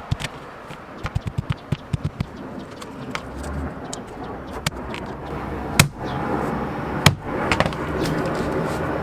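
A 6-pound sledgehammer striking a thick wad of folded paper to flatten the fold: a quick run of light taps about a second in, then a few single heavier blows, the two loudest near the end.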